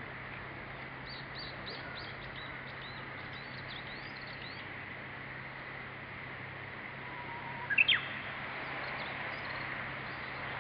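Japanese bush warbler (uguisu) singing: a held whistled note about seven seconds in, then a quick loud rising flourish. Earlier comes a rapid run of thin, high chirps.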